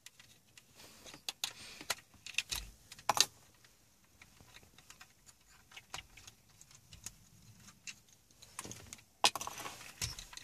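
Scattered light clicks, taps and rattles of a screwdriver on the plastic console frame while its Torx screws are taken out, with the sharpest clicks about three seconds in and again near the end.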